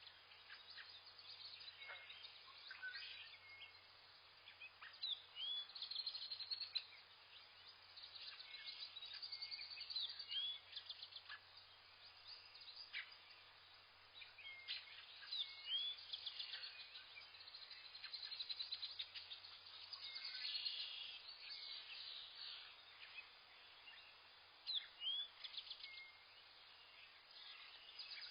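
Several wild birds chirping and calling in forest: short high chirps, upward-hooked whistles and quick trills come every second or two, over a faint steady hiss.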